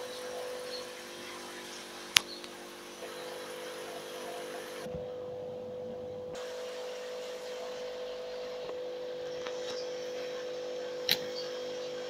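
Steady electric hum of aquarium air pumps driving the tanks' sponge filters, with two sharp clicks, one about two seconds in and one near the end.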